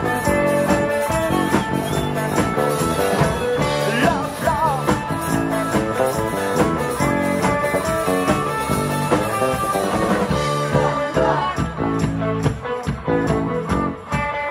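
Live pop-rock band playing an instrumental passage between sung lines: guitar over bass and a steady drum beat.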